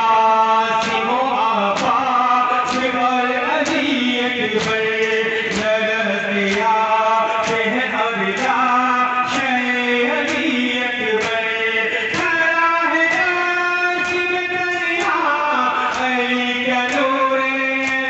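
Men chanting a Shia mourning lament (nauha) in a held, wavering melody, with the crowd's chest-beating matam landing as sharp slaps in a steady beat about once a second.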